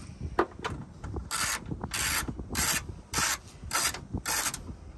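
Ratchet wrench worked back and forth on a mirror mounting nut: about six short rasping strokes, roughly two a second, in the middle stretch.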